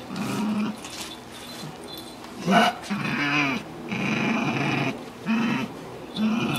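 A bull terrier growling in a string of short, rising-and-falling grumbles as a towel is rubbed over its head, with one sharper, louder burst about two and a half seconds in. The growls are its protest at being towel dried.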